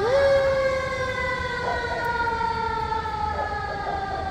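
Fire truck siren wailing: its pitch jumps up near the start and then slides slowly down, over low engine and traffic rumble.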